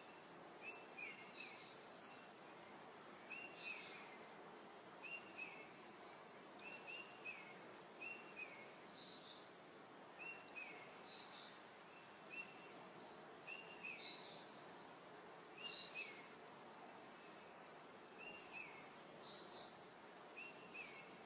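Faint birdsong: short chirps repeating every second or so throughout, over a steady hiss of outdoor background noise.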